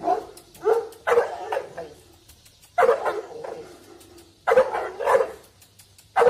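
A large black mastiff-type dog barking at a person facing it. The barks come in short runs of one or two, about every second or second and a half.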